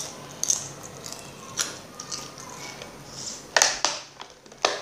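Plastic water bottle of frozen water crackling and clicking as it is handled: scattered sharp crackles, the loudest pair about three and a half seconds in.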